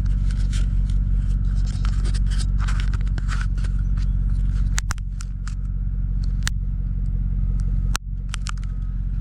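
Ford pickup truck's engine running steadily from inside the cab while driving slowly over a rough lot, with scattered clicks, rattles and scrapes on top.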